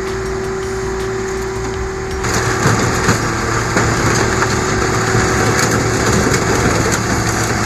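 A vehicle engine running steadily. About two seconds in it becomes louder and rougher, with scattered knocks and rattles.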